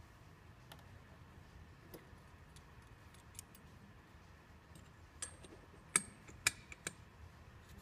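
Metal flow-meter parts being handled, then a few sharp metallic clicks and clinks about five to seven seconds in as the float assembly is slid into the metal core tube.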